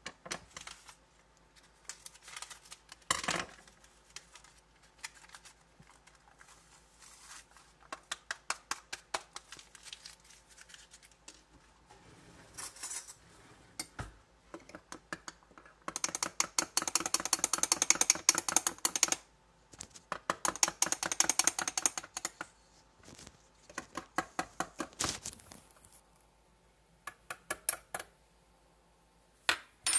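A metal spoon stirring hot chocolate in a ceramic mug, clinking against the sides in several runs of fast clinks, the longest and loudest about halfway through.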